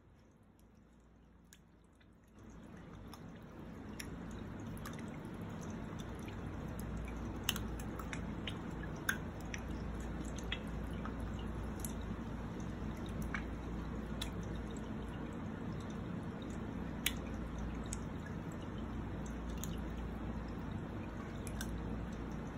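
Aquarium water trickling steadily with scattered sharp drips. The trickle comes up louder about two seconds in.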